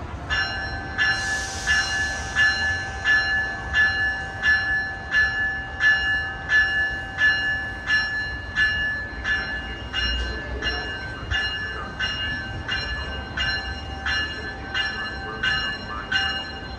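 Locomotive bell ringing steadily, about three strikes every two seconds, with a short hiss of air about a second in.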